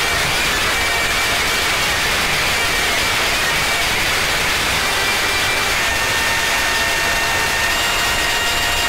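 Experimental noise music: a dense, steady wall of hiss-like noise with a few faint held tones in it, which change to a new set of tones about six seconds in.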